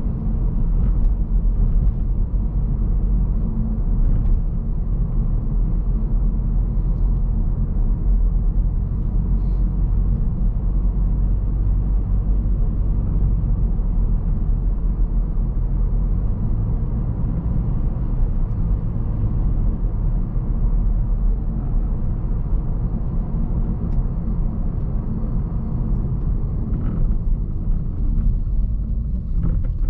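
Interior noise of a 2010 Toyota Prius III 1.8 hybrid on the move: a steady low road and tyre rumble inside the cabin.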